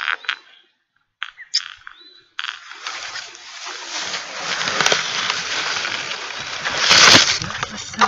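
Rustling and crackling close to the microphone, from the phone being handled and brushing through tall reeds and grass. It starts after a few short clicks, swells and is loudest near the end.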